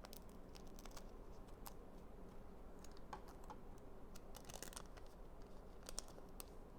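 Faint, scattered ticks and scratches of Pokémon trading cards and a booster-pack wrapper being handled, with a brief flurry about four and a half seconds in and a couple of sharper clicks near six seconds.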